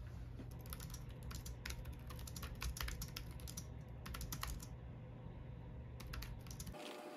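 Typing on a computer keyboard: a quick run of key clicks for about four and a half seconds, then a pause and a few more keystrokes, over a low steady hum that cuts off near the end.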